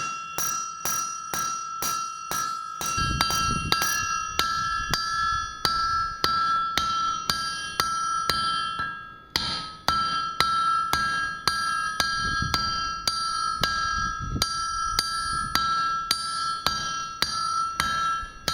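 Blacksmith's hammer striking hot steel on an anvil at about three blows a second, each blow setting the anvil ringing with a high, bell-like tone, with a brief pause about nine seconds in. These are finishing blows while shaping a small splitting maul head.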